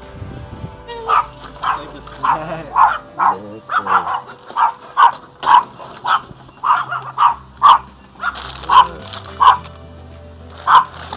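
A dog barking repeatedly, about two loud barks a second, starting about a second in, over background music.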